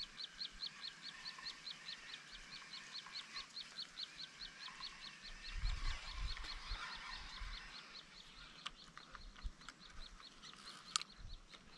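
A rapid, even series of high chirps, about six a second, fading out about eight seconds in, with fainter scattered chirping behind it. A few sharp clicks follow near the end.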